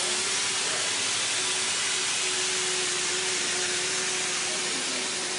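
Automatic mortar-spraying machine running, its compressed-air spray gun giving a loud, steady hiss as it sprays mortar, with a faint steady hum under it.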